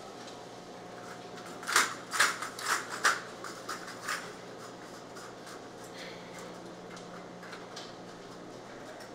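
Steady low machine hum, with a quick run of sharp knocks and clatters about two seconds in that lasts a couple of seconds.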